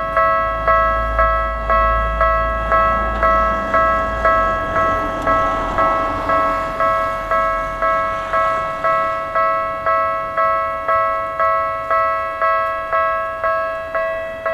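Japanese railway level-crossing warning bell clanging at an even pace of about two strikes a second, each strike ringing out with a bright, bell-like tone. A low rumble runs underneath for the first four seconds.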